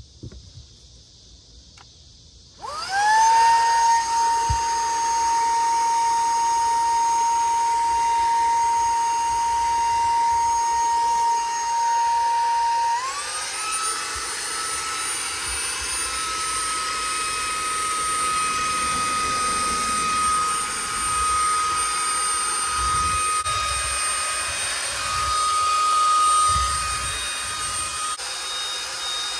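KOLSOL cordless handheld vacuum switching on about three seconds in, its motor whine rising and settling on a steady pitch at first speed. About halfway it steps up to a higher whine at second speed and runs on.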